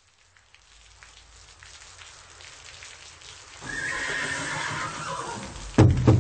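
Intro of a music track: a rain-like hiss swells, then about three and a half seconds in a long high animal cry with a slightly falling pitch comes in. Near the end a heavy drum beat with deep bass starts, about three beats a second.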